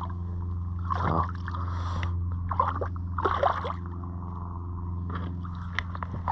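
Water splashing and sloshing at the kayak's side in a few short splashes as a small snapper is handled at the surface, over a steady low hum.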